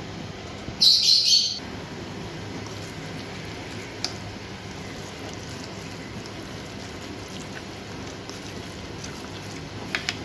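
A metal spoon mixing minced meat on a ceramic plate, with a few light clicks of the spoon against the plate, once in the middle and twice near the end, over a steady hiss. About a second in there is one brief, high-pitched chirp, the loudest sound.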